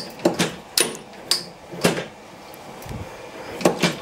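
Metal parts of an old 1938 turret lathe being handled: four sharp metallic taps about half a second apart, a low thump about three seconds in, then a quick double clank near the end, each with a short ringing tail.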